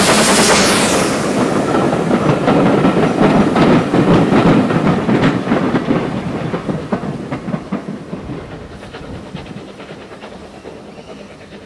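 An LBSCR A1X Terrier 0-6-0 tank engine passes with a hiss of steam, then its coaches roll by, wheels clicking over the rail joints. The sound fades away as the train recedes.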